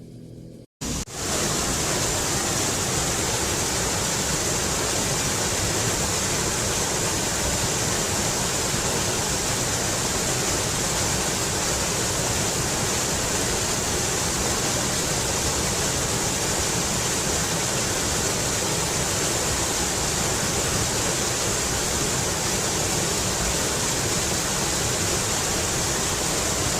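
Waterfall: a steady rush of falling water, cutting in abruptly about a second in after a brief gap.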